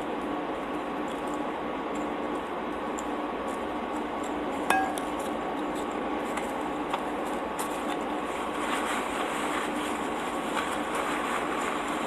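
Chewing of soft pretzel-crust pizza with small wet clicks, and one sharp clink with a brief ring about five seconds in, as something knocks against the ceramic plate.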